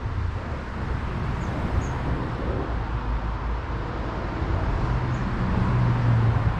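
Road traffic: a steady rumble of passing vehicles, with one engine growing louder and passing near the end.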